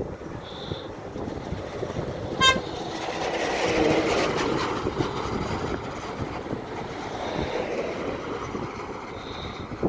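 Road traffic passing close by on a wet road: a vehicle swells up and goes past, loudest about four seconds in. A short horn toot sounds just before it. Wind rumbles on the microphone throughout.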